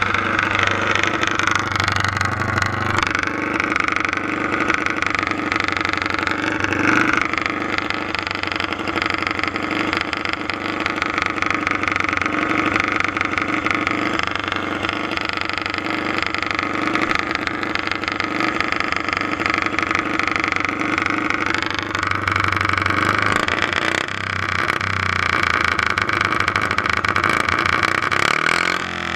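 Modified garden pulling tractor's engine running steadily close to the microphone, its pitch shifting a few times.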